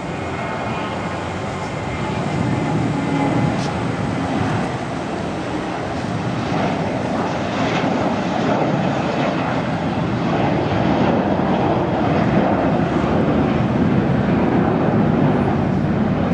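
Twin-engine Airbus A320-family airliner at takeoff thrust: a steady jet-engine roar and rush that grows louder as the jet rolls, lifts off and climbs.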